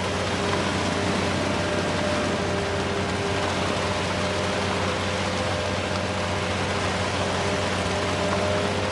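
Heavy vehicle or machinery engine running steadily under a constant hiss, with a few steady tones and a low hum and no change in speed.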